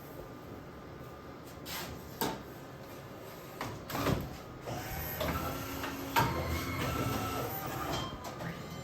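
A few separate knocks and clatters, the sharpest about two seconds in, around four seconds and about six seconds in, over a low steady hum.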